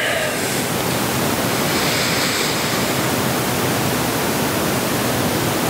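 Loud, steady hiss of noise that cuts in suddenly and cuts out just as suddenly, like static.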